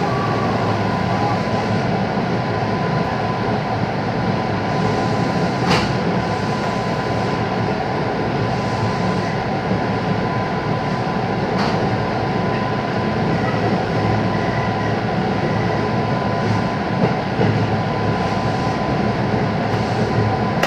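JR West 221 series electric train running slowly under a heavy-rain speed restriction, heard from on board: a steady rolling rumble with a thin steady whine, and two sharp clicks about six seconds apart.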